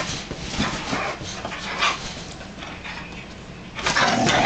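Two pit bulls play-wrestling: scuffling and panting, with short dog noises, and getting louder in the last second.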